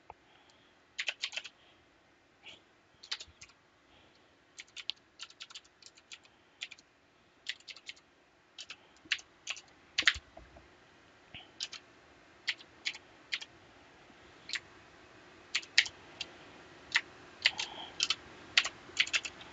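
Typing on a computer keyboard: short, irregular runs of key clicks with pauses between them as a command is entered.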